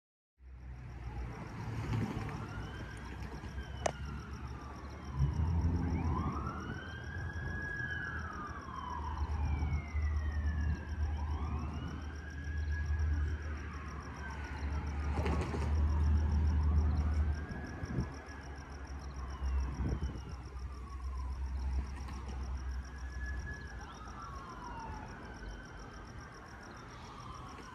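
An emergency-vehicle siren wailing, its pitch rising and falling about every three to four seconds. Under it, the low rumble of GP60 and GP25XE diesel locomotives working past, fading out near the end.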